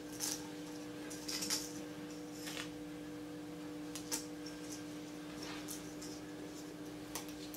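Plastic deco mesh being folded by hand: about six short, faint rustles over a steady low hum.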